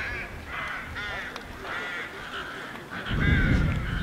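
Crows cawing repeatedly, a harsh call about every half second. A low rumble rises under them about three seconds in.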